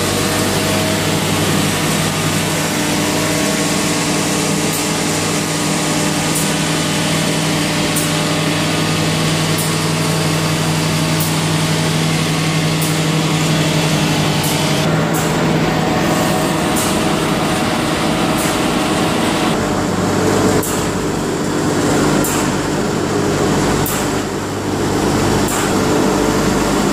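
Wood powder milling machine and its blower fan running steadily: a loud, even machine noise with a constant hum and faint regular ticks about every one and a half seconds.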